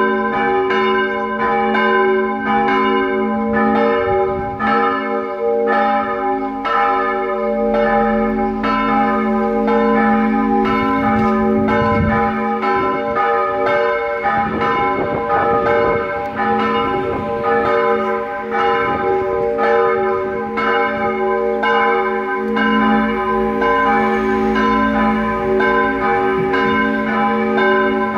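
Church bells ringing a full peal from the tower: a steady, unbroken run of strokes, with the bells' tones overlapping and humming on between strikes.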